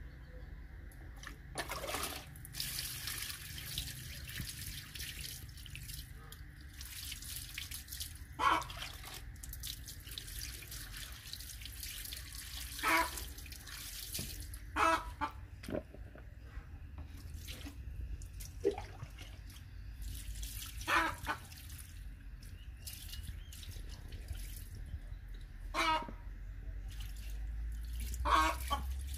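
Water poured from a plastic dipper splashing over gutted catfish and onto a wet tiled floor as hands rinse them. About half a dozen short, sharp sounds stand out above the splashing, every few seconds.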